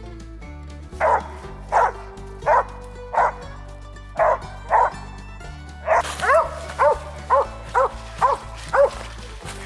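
Squirrel-hunting dog barking over and over, the steady barking of a tree dog with game treed. The first six barks come well spaced, then from about six seconds in they come faster, two or three a second. Background music runs underneath.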